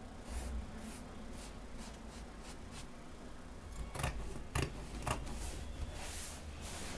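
Dressmaking scissors cutting through fabric, a few irregular snips, the clearest about four seconds in.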